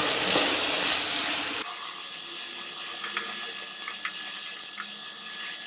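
Slices of dried tofu sizzling as they fry in hot oil in a pan. The sizzle is loud for the first second and a half, then drops suddenly to a softer hiss with a few light clicks.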